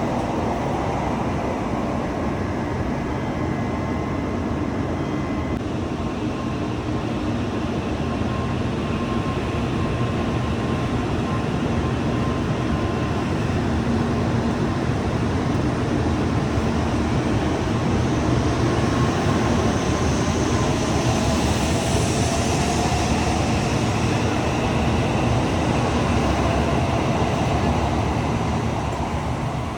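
Shinkansen bullet train running: a steady, loud rumble and rush of rail noise, with a faint rising whine about two-thirds of the way in.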